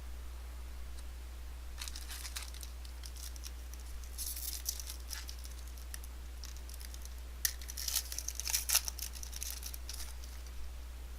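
Foil trading-card pack wrappers being torn open and crinkled in several bunches, loudest about two thirds of the way in, over a steady low hum.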